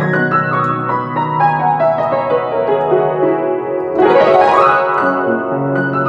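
Background piano music: sustained low notes under a run of notes stepping downward, then a quick rising run about four seconds in before the melody settles on held notes.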